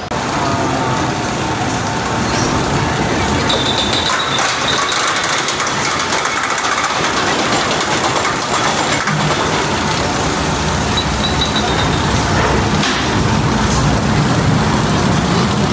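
Mine-train roller coaster trains running along the track, a steady rumble and clatter that grows louder near the end.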